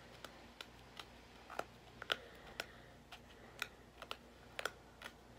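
Faint, irregular fingernail clicks and scratches, a few a second, as a clearance price sticker is picked at to peel it off a product package.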